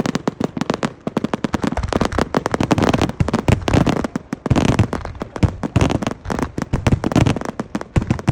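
Fireworks finale: a rapid, dense barrage of bangs and crackling bursts, many overlapping, with no let-up.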